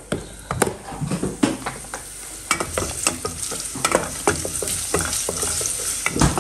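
Sliced garlic sizzling in olive oil in a stainless steel pot on low heat, with a wooden spoon stirring and knocking against the pot. The sizzle and clatter get louder and busier in the second half.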